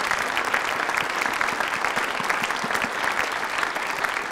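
Audience applauding steadily with many hands clapping.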